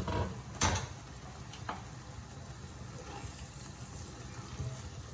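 A sharp metallic clatter of cookware, such as a pan lid or utensil knocking, about half a second in, then a fainter click about a second later, over a low steady hum.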